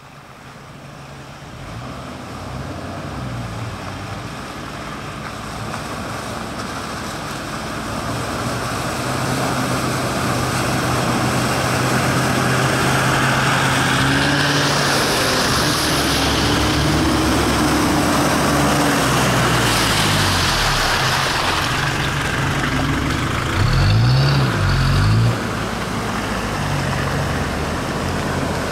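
Toyota LandCruiser four-wheel drives' engines running as they drive slowly along a muddy track, growing steadily louder as they come closer, with tyres going through wet mud. About 24 seconds in, an engine revs up briefly and drops back.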